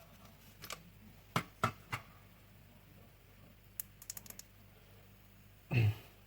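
Light clicks and taps from small parts being handled on a workbench, several spaced clicks and then a quick run of small ticks, followed by one short, duller knock near the end.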